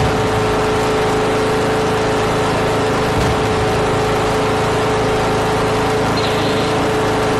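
Garden tractor engine running steadily under way: a loud, even engine noise with a constant tone running through it.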